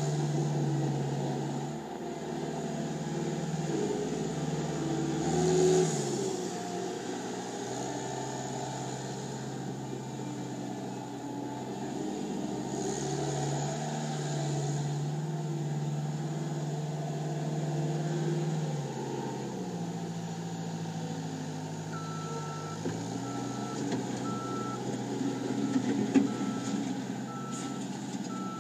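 Cat 252B3 skid steer loader's diesel engine running, its pitch stepping up and down several times as the machine is worked. In the last quarter its backup alarm starts beeping at an even pace as it reverses.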